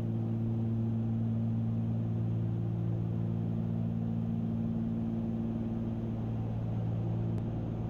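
Steady drone of a Cessna 310Q's twin piston engines and propellers in cruise flight, a low hum of several steady tones. A faint click near the end.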